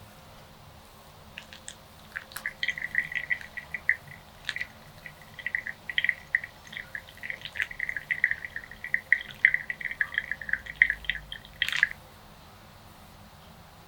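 Liquid being poured in an uneven stream for about nine seconds, starting about two seconds in and cutting off suddenly near the end.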